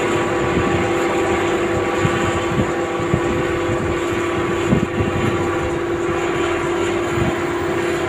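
Komatsu PC200LC long-reach excavator running under load as its arm lifts and swings: a steady engine and hydraulic drone with a constant hum, and a few light knocks.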